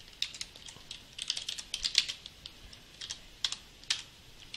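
Typing on a computer keyboard: several short bursts of keystrokes with pauses between them, and two separate louder key presses near the end.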